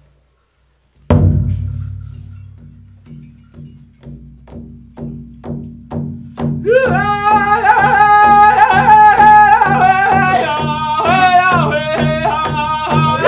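Large powwow drum struck in unison by a drum group with padded sticks. One loud booming hit comes just over a second in, followed by a steady beat of about two strikes a second. About halfway through, high-pitched powwow singing joins the beat.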